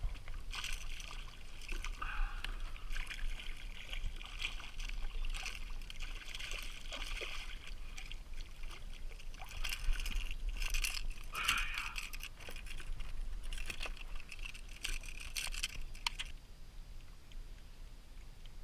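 A hooked speckled trout thrashing and splashing at the surface beside a kayak, in irregular bursts of splashing that stop about two seconds before the end.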